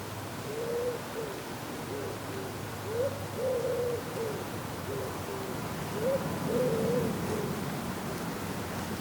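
Pigeon cooing: three repeated low phrases, each a short rising note into a longer held coo followed by shorter coos, with wind rumbling underneath.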